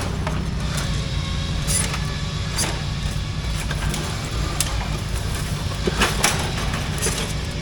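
Small lawn mower engines running steadily under racing load, with several sharp knocks and clatters.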